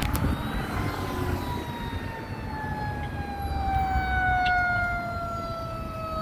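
Fire rescue vehicle's siren wailing: one long tone that rises briefly, then slowly falls in pitch.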